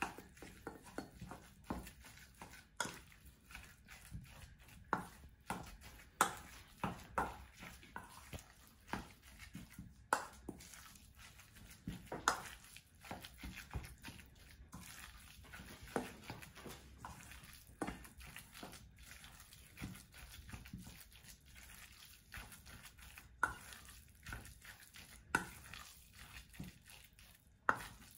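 Metal spoon clinking and scraping against a stainless steel bowl while minced pork and shrimp wonton filling is stirred, with irregular clinks about one or two a second.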